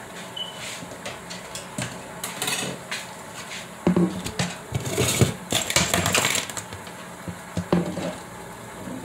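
Plastic cutting board clattering and knocking against the kitchen counter as it is handled and set down. There are scattered clicks throughout, and a dense run of knocks and scrapes around the middle.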